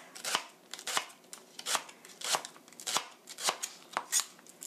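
Chef's knife thinly slicing a Korean leek (daepa) on a plastic cutting board, each cut ending in a sharp knock on the board, at about two to three cuts a second.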